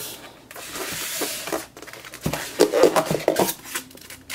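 Hands unpacking a microphone from its box: rustling of the packaging for about a second, then a run of knocks and clinks as the heavy mic is handled.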